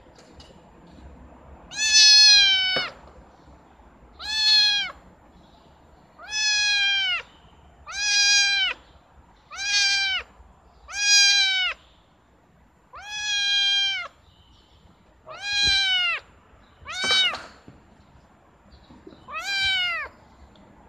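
Young kitten meowing over and over: about ten high-pitched meows, one roughly every two seconds, each holding its pitch and dropping off at the end.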